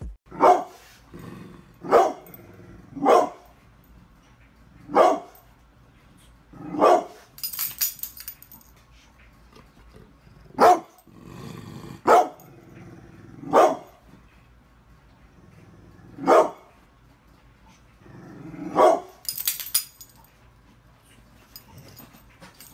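Brindle pit bull barking: about ten single, deep barks, one every one to three seconds, with quiet pauses between.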